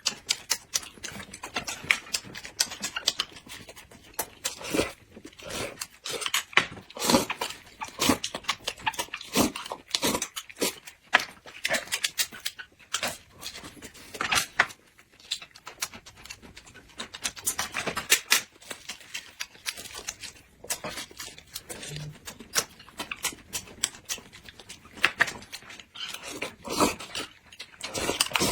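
Close-up eating sounds: loud chewing and lip-smacking, with irregular wet mouth clicks.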